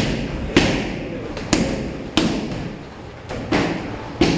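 Punches and kicks landing on Muay Thai pads: about five sharp smacks, unevenly spaced, with a short ring of the room after each.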